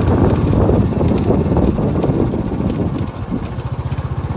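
Vehicle engine running with a steady low throb while travelling along a rough dirt road.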